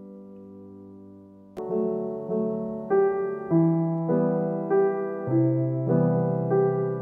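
Background piano music: a held chord fades, then about one and a half seconds in a louder phrase begins, with notes struck roughly every half second.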